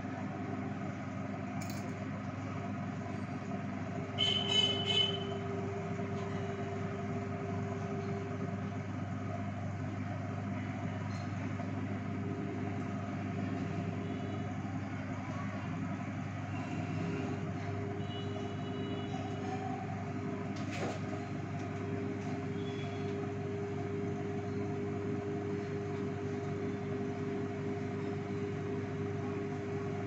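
Samsung convection microwave oven running on full microwave power, a steady hum from its fan and magnetron. About four seconds in, a brief high-pitched cluster of about three short pulses sounds over the hum.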